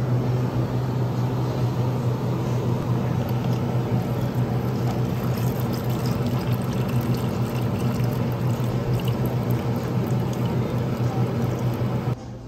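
Lemonade pouring in a steady stream from a drink dispenser's tap into a plastic cup, over a steady low hum. It stops abruptly near the end.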